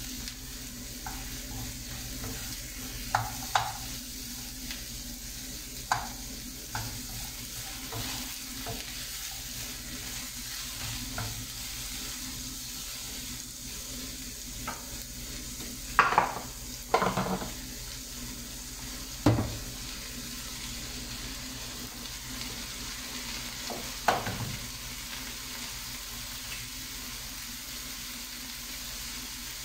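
Sliced mushrooms and onion sizzling steadily in oil in a frying pan, with a wooden spoon stirring early on and scattered clicks, and a few sharper knocks around the middle and about two-thirds through.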